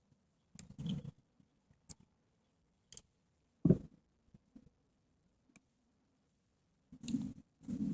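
Scattered small clicks and a few brief rustling handling noises, with one sharper knock a little before the four-second mark, the loudest sound.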